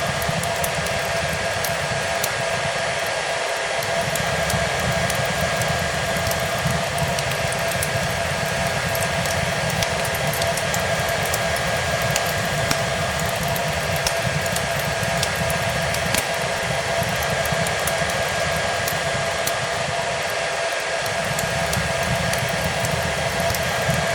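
Hair dryer running steadily: a continuous rushing airflow with an even motor whine. Over it are small, scattered crackles of a wood fire.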